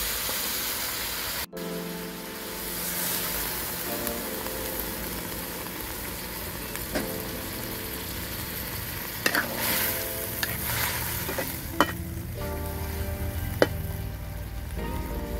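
Meat and vegetables stir-frying in a large metal wok: steady sizzling, with a metal spatula scraping through the food and clicking sharply against the pan a few times in the second half.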